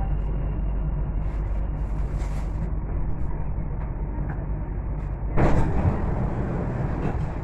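Dubai Metro train's steady low rumble as it slows and stops in a station. About five seconds in there is a brief, louder rushing hiss as the doors slide open.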